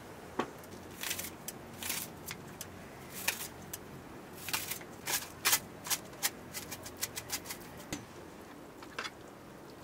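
Hands placing food into an aluminium mess tin at a camp table: an irregular run of small clicks, taps and rustles, busiest in the middle of the stretch.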